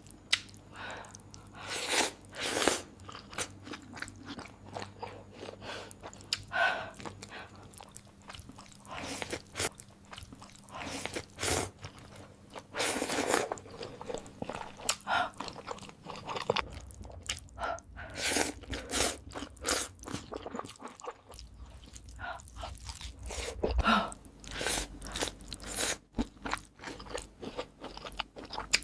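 Close-up mukbang eating sounds: a person biting into and chewing crunchy food, with irregular loud crunches between softer, wetter chewing.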